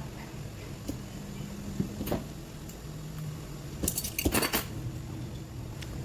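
Small hard objects clicking and clinking as they are handled: one sharp click about two seconds in and a quick run of clicks about four seconds in, over a low steady hum.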